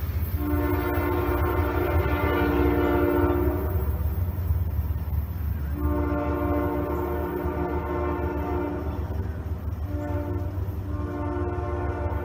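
Horn of a GE ES40DC freight locomotive sounding the grade-crossing signal: two long blasts, a short one and a long one, over a steady low rumble.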